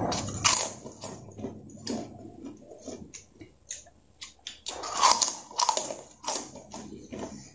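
A person biting and chewing kerupuk, crispy Indonesian crackers: a run of sharp, irregular crunches that come thickest about five to six seconds in.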